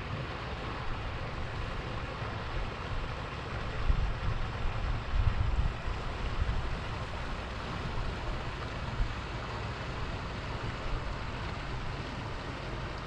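Wind buffeting the microphone over a steady rush of open-water noise, with stronger gusts about four to six seconds in.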